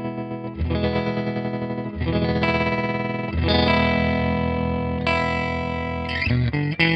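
Electric guitar chords played through an EarthQuaker Devices Hummingbird Repeat Percussions tremolo in its fast, choppy mode 3. Each held chord is chopped into a fast, even pulsing, with a new chord every second or so, and the sound breaks up choppily near the end.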